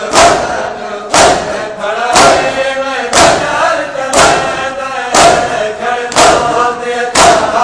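A crowd of Shia mourners doing matam, beating their chests in unison with a loud slap about once a second, under a chanted noha lament sung by many men's voices.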